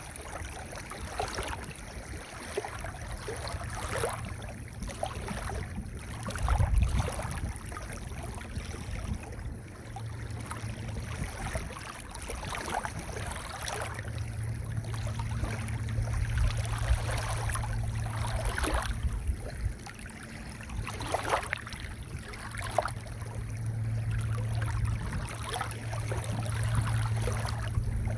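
Waves washing in and out on a pebble beach, the stones rattling and clattering as the water drags over them, in slow surges. A low steady hum runs underneath, stronger in the second half.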